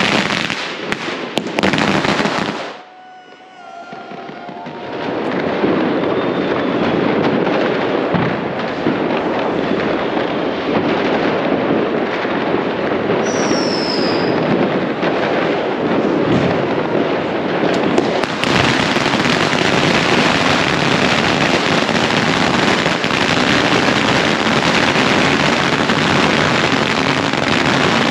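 Dense barrage of fireworks and firecrackers: continuous crackling and banging, with a short lull about three seconds in and a brief high falling whistle near the middle.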